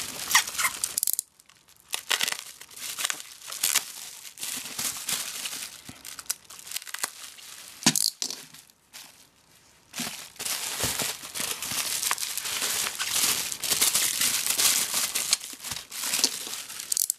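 Bubble-wrap packaging crinkling and rustling as wrapped parts are handled and shuffled, in uneven bursts with brief lulls about a second in and around nine seconds in.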